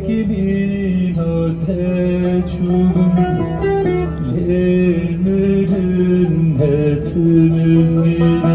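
Music: a plucked string instrument playing a bending melody over a steady low drone note.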